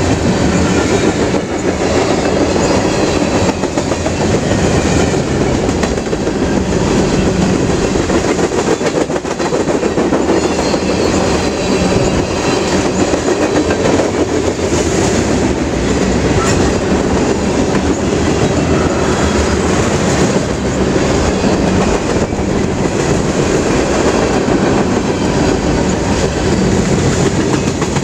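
Freight train's cars rolling past close by: a steady, loud rumble and clatter of steel wheels on the rails.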